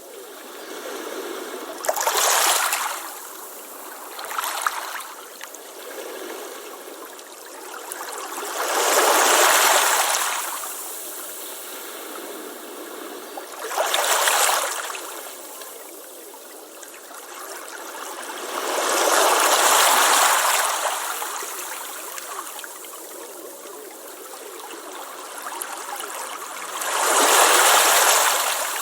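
Ocean waves breaking and washing up a beach: six surges of surf, each a swelling rush of water lasting one to three seconds, over a steady hiss of foam and backwash between them.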